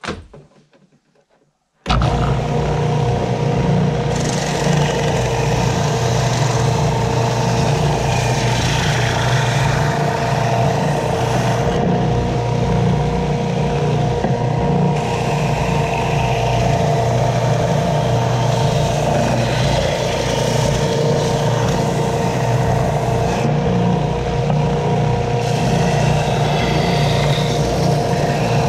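Benchtop belt sander switched on about two seconds in, then running steadily with a hum of several steady tones while the wooden guitar-shaped box is held against the 120-grit belt to be sanded smooth. A few small handling knocks come just before it starts.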